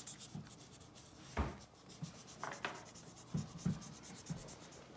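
Felt-tip marker scratching over a colouring book page in short, faint strokes, with a few soft knocks, the loudest about a second and a half in.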